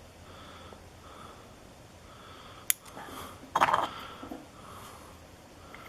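Small metal lock parts clicking and clattering as a shimmed lock core is worked free of its cylinder: one sharp click a little before halfway, then a brief rattle of clicks about a second later. Soft, even breathing is heard under it.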